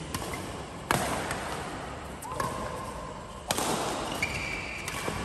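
Badminton rackets hitting a shuttlecock during a doubles rally in a reverberant sports hall: two sharp, echoing hits about a second in and about three and a half seconds in, with lighter hits and brief squeaks between them.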